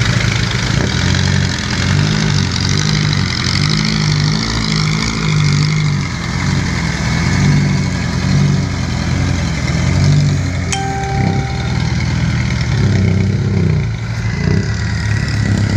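Heavy diesel engines of a backhoe and a loaded lorry working hard under load, the backhoe towing the lorry uphill. The engine note pulses and swells unevenly, with a single sharp click about eleven seconds in.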